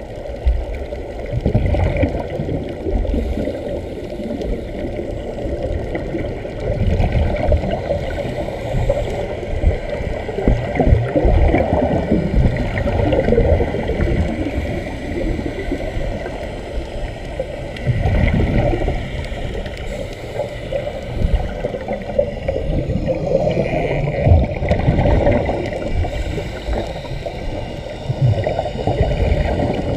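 Air bubbling and gurgling underwater as it vents from hose-fed sea-walking helmets, recorded by a camera underwater. The bubbling comes in irregular surges.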